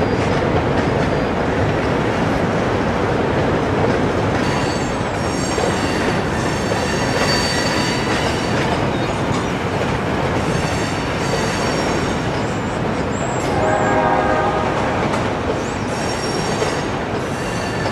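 Freight train of hopper cars rolling over a steel bridge, a steady rumble and rattle of cars, with high-pitched wheel squeal through the middle. The locomotive horn sounds about fourteen seconds in and again near the end.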